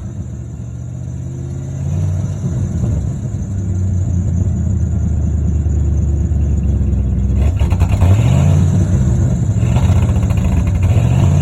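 1995 Ford F-150's engine running, revved up twice in the second half, while its alternator is failing; the owner expects it to die.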